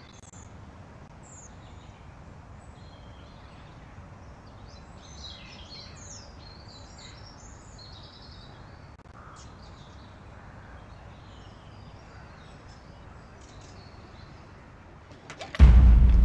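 Quiet outdoor evening ambience, a low steady background with scattered bird chirps and tweets. Near the end a sudden loud sound cuts in, a low droning with a high thin whine.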